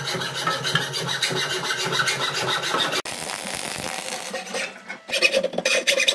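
Hacksaw cutting through a steel exhaust pipe by hand, the blade rasping in back-and-forth strokes. About four seconds in it eases off briefly, then the strokes pick up again.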